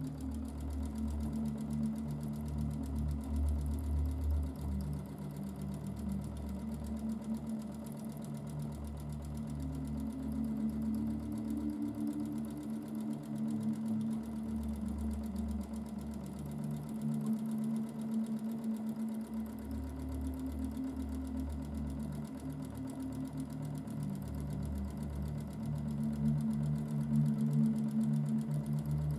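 Domestic sewing machine running during free-motion quilting, the needle stitching continuously through the quilt. Its hum rises and falls in speed, easing off briefly a few times.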